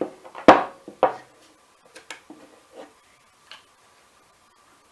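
Sharp metallic clicks and knocks from handling small hand tools and parts while taking apart the handle of a powder-actuated tool: a loud click about half a second in, another about a second in, then a few lighter ticks.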